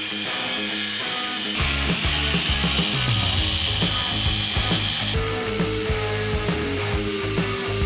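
Tool work on the axle's metal brackets: rapid ratchet-like clicking and rasping that changes abruptly about a second and a half in and again about five seconds in, with a steady tone from about five seconds in that falls slightly in pitch.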